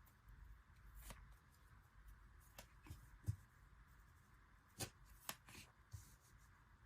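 Hands handling unboxed packaging and photocards: a few light, separate rustles and soft taps, the sharpest about three seconds in.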